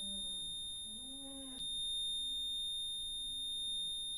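Continuous high-pitched electronic alarm tone, held steady without a break, with faint lower voice-like sounds underneath in the first second and a half.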